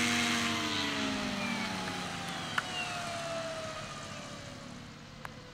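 RC scale helicopter's drive and rotors spinning down after landing: a whine that falls steadily in pitch and fades away. There is a brief click about halfway through and another near the end.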